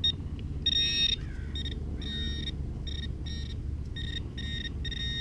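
Handheld metal-detecting pinpointer buzzing in a string of on-and-off pulses, some brief and some held about half a second, as it is worked over a buried target: it is sounding off on a piece of aluminum foil.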